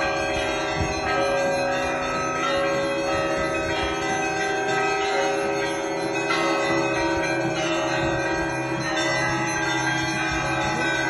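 Church bells ringing: several bells of different pitch struck again and again, their tones overlapping and ringing on without a break.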